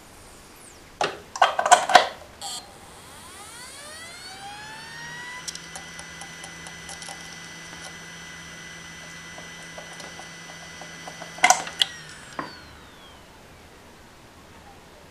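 Western Digital VelociRaptor 10,000 rpm SATA hard drive spinning up and down. After a few loud clicks, its whine rises over about two seconds and settles into a steady high whine over a low hum, with light ticking. Near the end another burst of clicks comes, and the whine falls away as the platters spin down.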